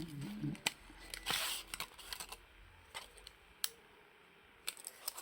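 Scattered small clicks and a brief scraping rustle about a second in, from hands handling small phone parts and tools on a repair bench.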